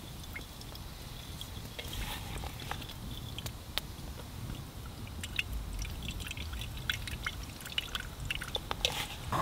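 Water drops falling and ticking irregularly, many small separate hits, over a low steady rumble.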